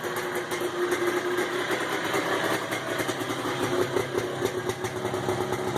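Polaris Trailblazer ATV's two-stroke single-cylinder engine, with a freshly rebuilt top end, idling steadily while it warms up.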